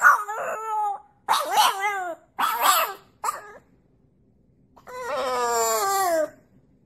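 French bulldog puppy howling: a string of short, wavering calls, then a pause and one longer call about five seconds in that falls in pitch.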